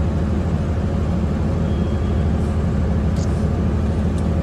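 An engine running steadily at idle, a low even rumble with a fast regular pulse.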